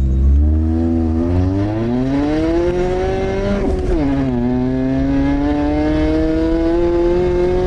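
Lada Priora's four-cylinder engine with the muffler removed, pulling away and accelerating: the exhaust note rises for about three seconds, drops sharply at a gear change, then climbs steadily again in the next gear.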